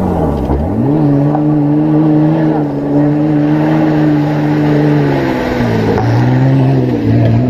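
Off-road race vehicle's engine under load. Its pitch drops sharply just after the start, climbs back and holds steady for about four seconds, then dips and rises again twice near the end.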